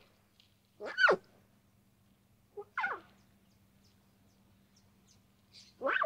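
Lion cub calling: three short calls, each sliding sharply down in pitch, about two seconds apart.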